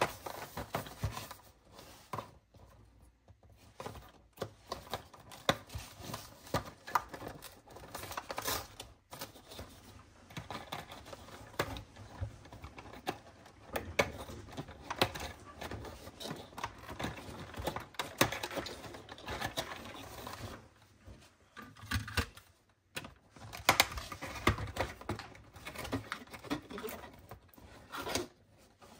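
Long fingernails tapping, clicking and scratching on a cardboard advent calendar box, with the rustle of cardboard and a small paper card being handled as a door is opened and its contents taken out. Many quick, irregular taps run throughout.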